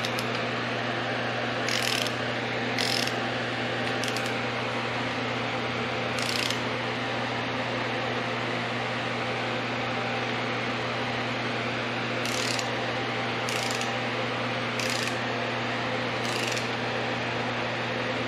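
Torque wrench set to 45 foot-pounds clicking as the connecting-rod cap bolts of a 5.7 Vortec V8 reach torque. There are about eight sharp clicks at irregular intervals, heard over a steady hum.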